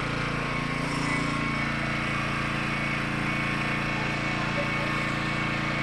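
Small 2 kVA inverter generator's engine running at a steady speed, a constant mechanical drone.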